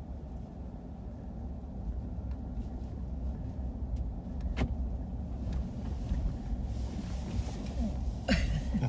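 A car running, a steady low rumble, with a sharp click about halfway through and a louder knock near the end.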